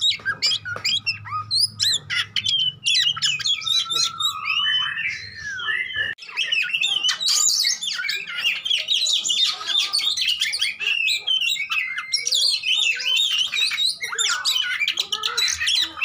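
Oriental magpie-robin (kacer) in full fighting-mood song: a dense, fast stream of varied whistled notes, glides and harsher calls. This is the kind of song used as a provocation to set other magpie-robins singing. There is a brief break about six seconds in.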